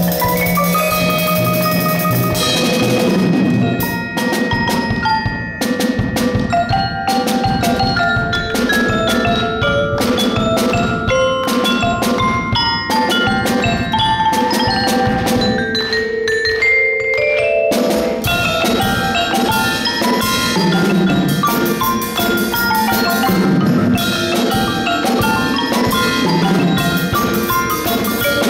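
Percussion ensemble playing a lively tune on marimbas and xylophones, backed by drums and cymbal, with a quick rising run of mallet notes about two-thirds of the way through.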